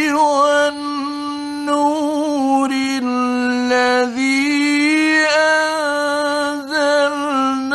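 A male Quran reciter chanting in the slow, melodic mujawwad style, drawing out long ornamented notes with a wavering pitch.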